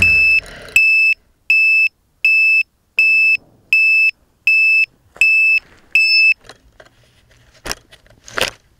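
A landed quadcopter's onboard electronic beeper sounds about nine high-pitched beeps, one roughly every three-quarters of a second, then stops. Near the end come two short knocks and rustles as the craft is handled and picked up off the grass.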